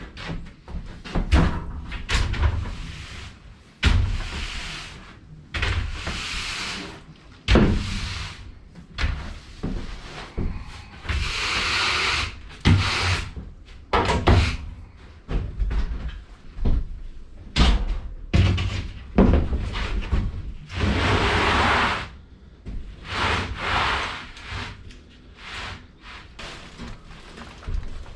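Woodworking on a shed door: irregular wooden knocks and thumps as boards and plywood are handled and set down, with several noisy bursts about a second long in between.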